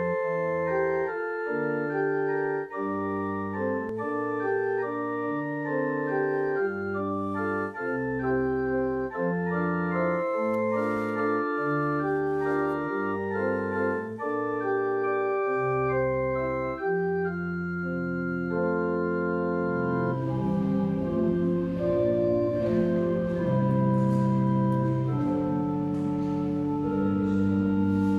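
Organ playing a hymn-like piece in sustained chords over a bass line that moves about once a second. About twenty seconds in, a faint room hiss comes in under the music.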